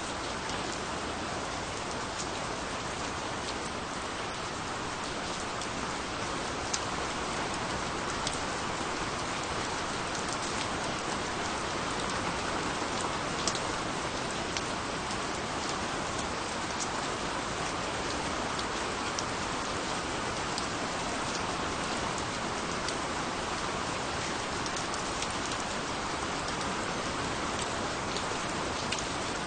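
Steady rain falling, an even hiss with scattered sharp ticks of individual drops striking a surface.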